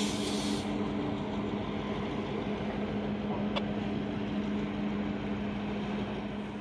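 An engine idling with a steady hum that fades out near the end, and a short hiss of air right at the start.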